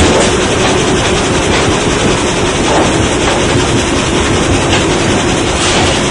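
Sawmill machinery running: a powered roller conveyor carrying a squared log cant toward the gang saw, a steady, dense mechanical noise with a constant hum.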